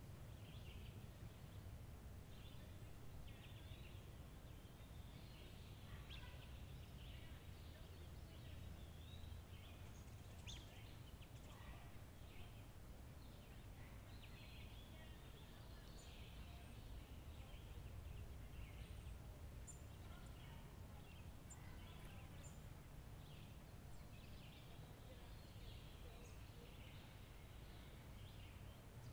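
Faint outdoor ambience: many birds chirping and calling in short, scattered notes over a low, steady rumble.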